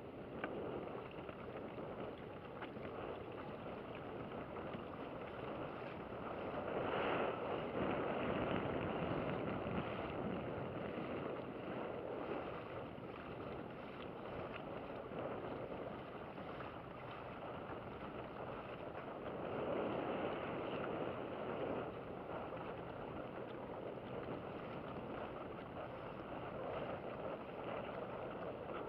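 Small boat under way: a steady rush of wind and water noise with the motor low underneath. It swells louder about a quarter of the way in and again past two-thirds.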